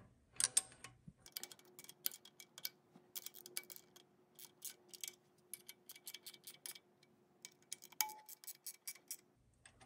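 Faint, irregular metal clicks and ticks from a hex key turning and seating the bolts on a DRO scale's aluminium mounting brackets as the brackets are wiggled into place and tightened.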